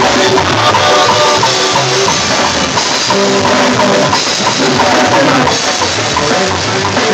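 Loud live duranguense band music with a drum kit beat, saxophone and keyboard.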